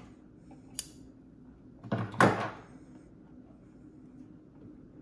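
Handling noises at a sewing table: a sharp click a little under a second in, then a louder, brief rustling clatter about two seconds in, over a faint steady hum. The sewing machine is not running.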